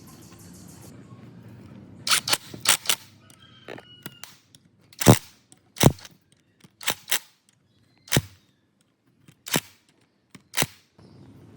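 About a dozen sharp knocks on metal at uneven intervals, the loudest about five seconds in, as parts of an old rusty water pump are struck or knocked during its restoration.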